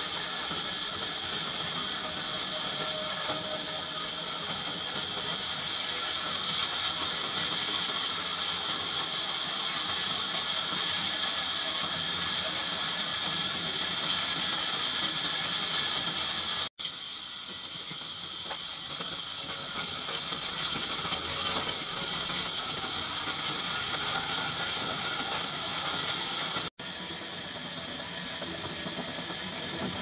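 Horizontal band sawmill blade cutting lengthwise through a large log, a steady high-pitched hissing rasp of the saw in the wood. The sound breaks off for an instant twice.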